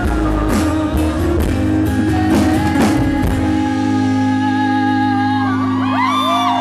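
Rock band music between sung lines: drum hits and guitar for about the first three seconds, then a held chord, with a bending melody line coming in near the end.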